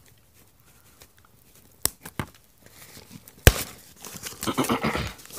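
Shipping package being torn open down the middle: a few sharp snaps about two seconds in and a loud pop about three and a half seconds in, then a second or so of tearing and crinkling.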